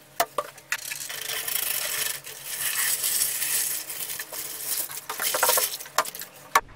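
White vinegar poured from a plastic jug into a plastic tub over a copper sprayer tank, a steady splashing stream for about five seconds, to soak the tank and remove its oxidation. A few knocks of the jug come at the start and near the end.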